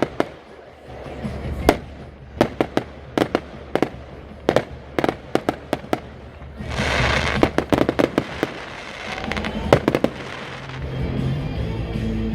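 Fireworks display: an irregular string of sharp bangs, with a dense hissing crackle about seven seconds in.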